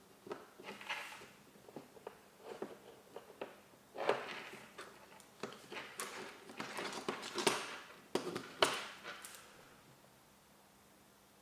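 Gel blaster gearbox parts being handled and taken apart by hand: irregular clicks, scrapes and knocks of small plastic and metal pieces. They are busiest in the middle and stop about a second before the end.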